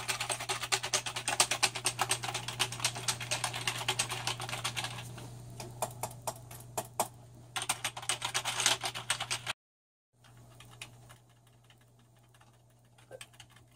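Computer keyboard typed on rapidly in quick runs of keystrokes, thinning out midway, picking up again, and stopping about two-thirds of the way in. A steady low hum runs underneath.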